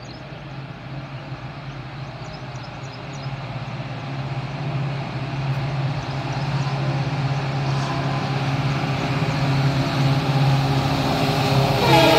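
An approaching express train: the locomotive's steady low hum and the rumble of wheels on rails grow gradually louder as it nears. Near the end the train horn starts to sound.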